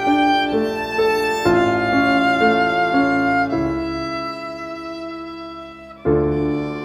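Instrumental background music: a melody stepping through notes about twice a second, then a held chord that slowly fades, and a new chord coming in about six seconds in.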